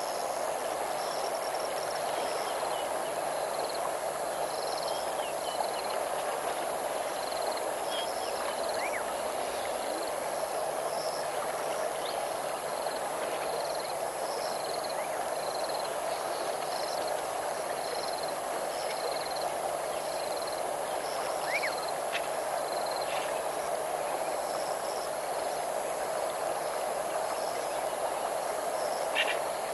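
Outdoor bush ambience: a steady rushing wash with insects chirping in short, evenly repeated pulses and a few brief bird chirps scattered through, over a faint steady hum.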